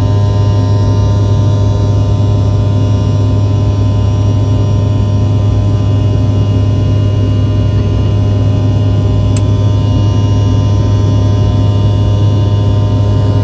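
Jet airliner cabin noise at a window seat in flight: a loud, steady engine and airflow drone with a strong low hum and several steady whining tones above it. A brief click comes about nine seconds in.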